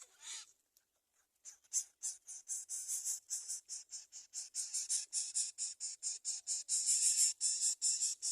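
Greater coucal chick giving rapid raspy begging calls, short hissy notes at about five a second. They start about a second and a half in and grow louder toward the end.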